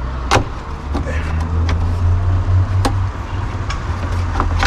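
Sharp clicks and knocks of door parts being handled and fitted into a car door, over a steady low rumble. The knocks come singly, about a third of a second in, near 3 seconds and, loudest, at the end.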